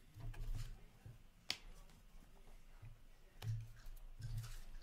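Trading cards being handled and set down on a counter: soft clicks and rustles, with one sharp click about a second and a half in.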